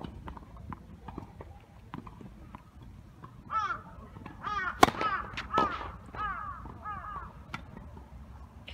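A tennis serve: the racket strikes the ball with one sharp crack about five seconds in, followed by a few lighter ball hits and bounces. Around it a crow caws repeatedly, a run of short calls lasting about three seconds.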